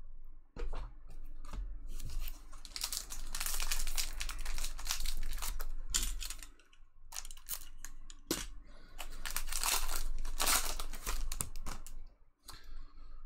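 Foil wrapper of an Upper Deck Allure hockey card pack being torn open and crinkled by hand, in two long rustling stretches, one starting about two and a half seconds in and one about nine seconds in, with a few sharp clicks of cards being handled between them.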